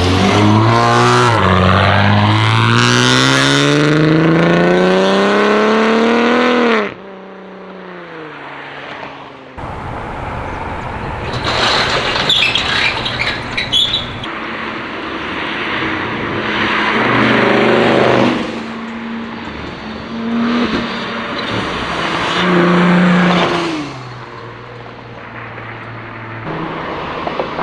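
Supercharged Dodge Challenger V6 with catless downpipes and an X-pipe exhaust, pulling hard with the engine note climbing steadily for about six seconds, then dropping away suddenly as the throttle closes. A burst of crackling pops follows, then several shorter pulls where the note rises and falls again.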